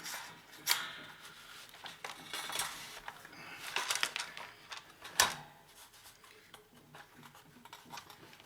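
Hard plastic casing of a portable oxygen generator being handled and opened up on a table: scattered clicks, rattles and scraping, with a sharp knock about five seconds in and another under a second in.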